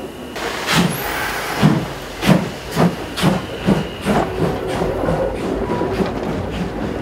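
Class 52 2-10-0 steam locomotive passing close by, hissing steam with a regular heavy beat about twice a second that fades into lighter, quicker clatter in the second half.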